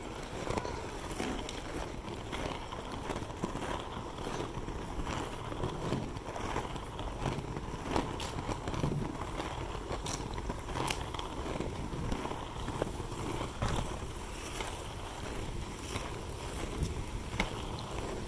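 Skate wheels rolling fast over paving stones: a steady rumble with scattered sharp clicks and knocks.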